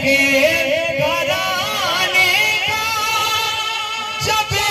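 A single voice singing a slow devotional chant through a loudspeaker, in long wavering, ornamented notes.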